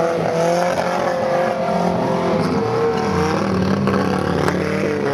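Off-road vehicle engine running under load and revving, its pitch wavering up and down.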